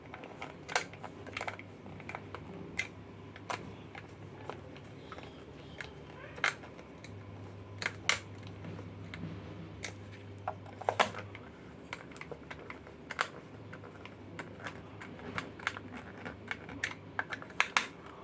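Irregular light clicks and taps of small plastic and metal parts being handled and fitted as a Bluetooth speaker is reassembled, over a low hum that drops out and returns a few times.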